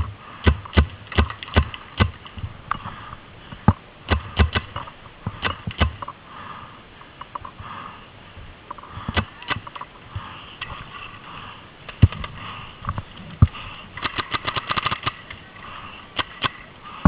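Paintball markers firing: sharp pops, singly and in quick strings, with a rapid burst of about a dozen shots near the end.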